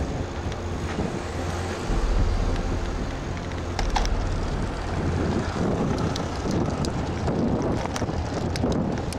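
Car driving through town streets, its engine and road noise a steady low rumble heard from inside the cabin, with wind noise on the microphone and a few light clicks.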